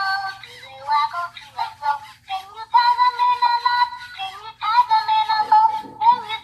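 A children's song playing from a plush elephant toy's small built-in speaker: a high-pitched sung melody in short phrases with held notes.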